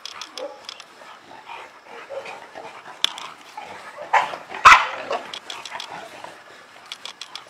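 Illyrian Shepherd dog barking: a loud double bark a little past four seconds in, amid softer dog sounds.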